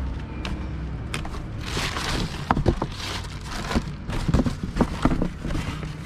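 Plastic packaging rustling and crinkling, with irregular clicks and knocks of parts and cardboard being handled, over a low steady background rumble.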